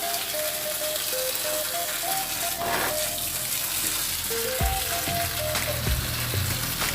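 Background music: a simple melody of short held notes over a low bass line, with a steady crackling hiss underneath.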